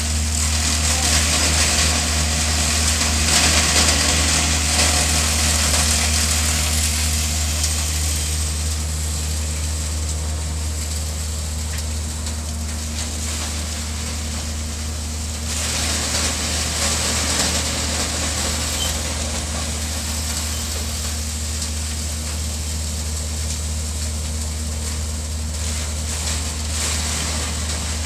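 A hemp-stalk chopping machine running with a steady low hum, and a rushing, crunching noise as stalks are fed in by hand and chopped. The noise is heavier for the first several seconds and picks up again from about halfway.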